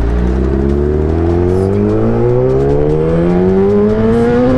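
Kawasaki ZX-10R's 1000 cc inline-four engine accelerating under load, its pitch rising steadily as the revs climb in one gear.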